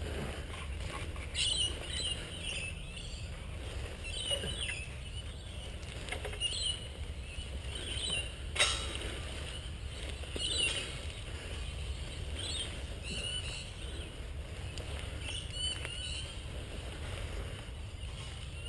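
Outdoor ambience: a steady low rumble with scattered short, high bird calls, about a dozen across the stretch, and one sharp knock about halfway through.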